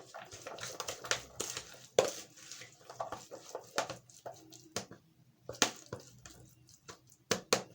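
A spoon mixing chopped tomatoes, onions and spice powders together in a bowl: irregular clinks and knocks of the spoon against the bowl, the sharpest about two seconds in and a quick cluster near the end.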